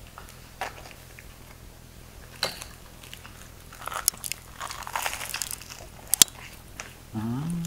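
Crisp toasted baguette crunching as it is bitten into and chewed, a string of crackly crunches thickest in the middle. Near the end a short hummed voice rises and falls.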